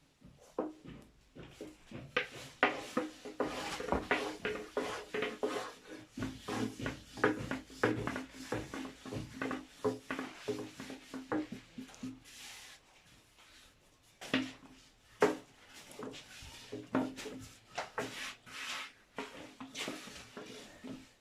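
Irregular knocks, taps and rubbing of objects being handled, busiest in the first half and again with a few louder knocks near the end.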